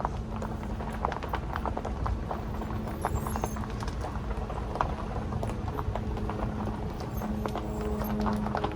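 A car driving slowly, heard from inside: irregular clicks and knocks over a steady low rumble, with a faint steady hum growing stronger near the end.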